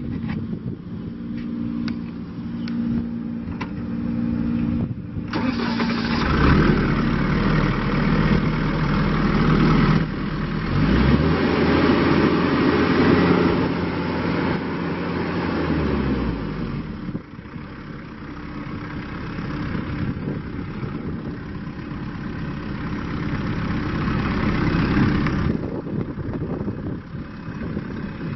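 New Holland Boomer 41 tractor's 40-horsepower diesel engine idling, then revved up about five seconds in and held high for about ten seconds, eased down, revved again and dropped back to idle near the end.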